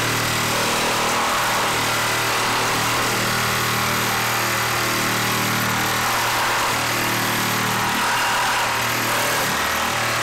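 DeWalt XR compact brushless reciprocating saw running steadily at full speed, its blade cutting through a wooden 4x4 post with six screws driven into it.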